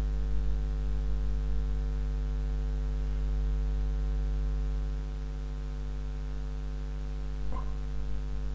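Steady electrical mains hum in the recording, a low buzz with a stack of evenly spaced overtones. There is a brief faint voice sound near the end.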